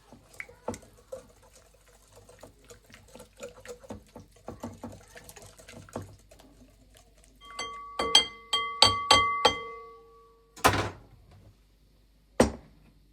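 Kitchenware being handled: light taps and clicks, then a run of about six quick strikes on a ringing dish whose tone hangs on briefly, then two heavier thunks near the end.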